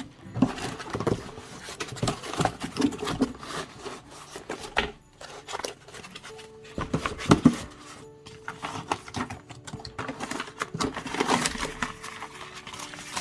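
Cardboard box and packaging being handled, with irregular scrapes, taps and rustles as the laptop is taken out, over background music with some held notes.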